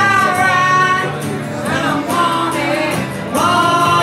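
Live acoustic music: a man singing long, slightly wavering notes into a microphone over acoustic guitar.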